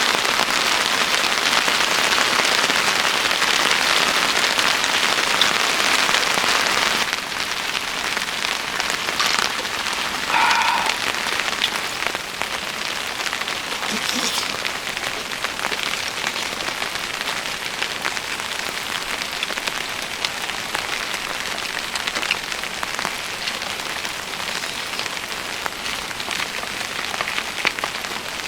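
Steady rain falling, a dense patter of drops that drops suddenly to a softer level about seven seconds in. A short pitched sound is heard once about ten seconds in.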